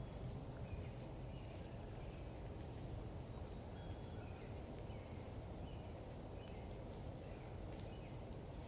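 Faint outdoor dawn ambience: a steady low wind rumble with scattered short, faint chirps of small birds and a few soft ticks.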